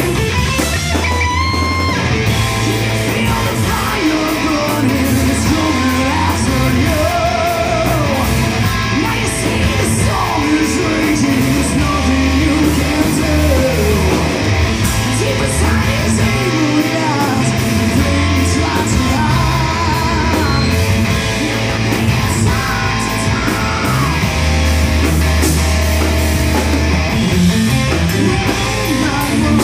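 A heavy metal band playing live: electric guitar, electric bass and drums, with a man singing and shouting into a microphone over them.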